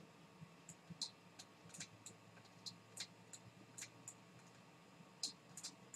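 Faint, irregular ticks and clicks of a stylus tapping and stroking on a pen tablet while letters are handwritten, a few a second.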